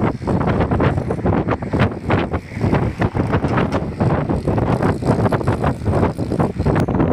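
Strong wind buffeting the microphone: a loud, rough low rumble with constant irregular crackling.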